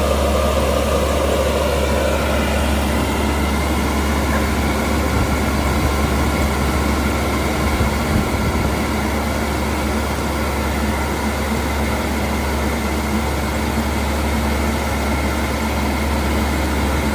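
Combine harvester's diesel engine running steadily with an even low drone.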